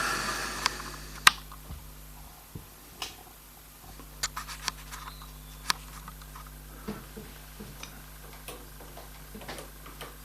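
Scattered small clicks and taps from handling the parts of a vintage sewing machine, with a short rustle at the start and a steady low hum underneath.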